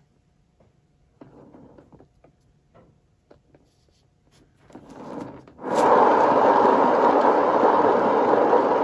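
Faint rubbing and handling sounds, then, a little past halfway, a hair dryer switches on abruptly and runs with a loud, steady blowing noise, pushing the poured acrylic paint outward into a bloom.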